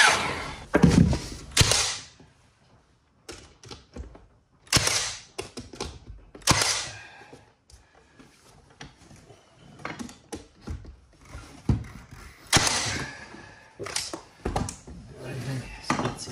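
A run of separate thunks and knocks with quiet gaps between: baseboard trim being set against the wall and fastened with a cordless nailer. The loudest come twice in the first two seconds and again near the end.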